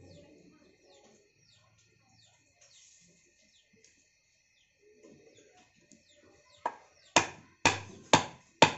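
A large knife chopping down through a fish onto a wooden block: a run of about five sharp chops, roughly two a second, starting about two-thirds of the way in. Before them, only faint bird chirping.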